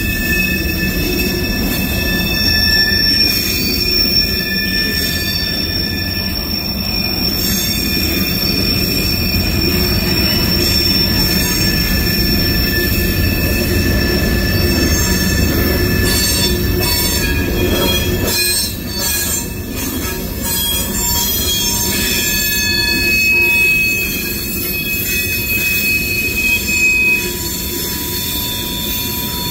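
Freight cars of a CSX train (covered hoppers and tank cars) rolling past, wheels rumbling on the rail with flange squeal in several steady high tones. A cluster of sharp clicks and knocks comes about two-thirds of the way through.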